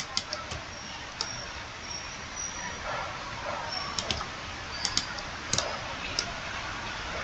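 Scattered clicks of a computer mouse and keyboard, some in quick pairs, over a steady low hiss.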